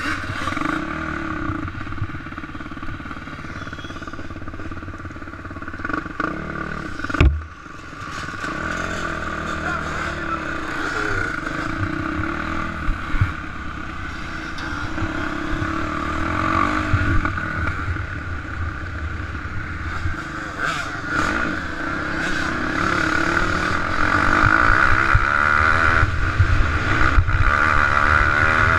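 Off-road dirt bike engine heard close up from the bike itself, running and revving up and down over a rough trail and getting louder toward the end. One sharp knock about seven seconds in.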